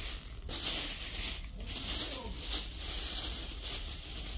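A cat eating food off the pavement close up, with wet chewing and smacking noises that come in spells.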